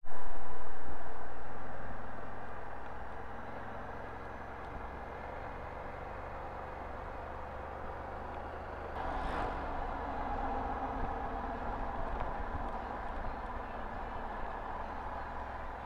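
Road traffic with vehicle engines running. It is loudest at the start and dies away over the first few seconds, then settles into a steady low engine hum. A brief rise of noise comes about nine seconds in.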